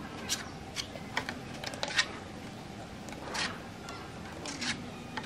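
Scattered light clicks and taps at irregular intervals, the sharpest about two seconds in, over a steady low hiss.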